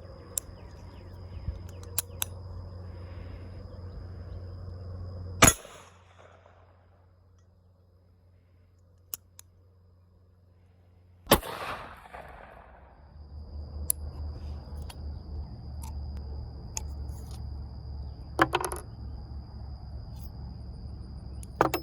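Two single gunshots about six seconds apart, each a sharp crack with a short tail, with small clicks of handling around them.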